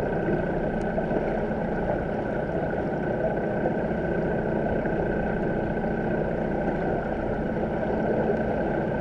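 Steady underwater noise in a swimming pool, heard through a submerged camera: a dense, even rumbling wash with a thin steady hum running through it.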